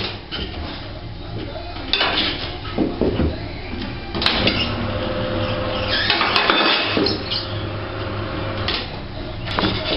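Intermittent scrapes and knocks of hand tools and parts being handled at a motorcycle wheel during a tyre change, over a steady low hum.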